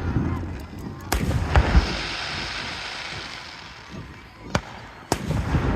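Aerial fireworks show: sharp shell bursts about a second in and again near the end, with a high crackle fading away between them.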